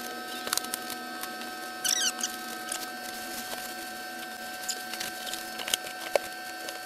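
Cardboard shipping box being opened and lifted off a foam-packed 3D printer: scattered scrapes, rustles and knocks, with a short squeak of cardboard or foam about two seconds in, over a steady hum.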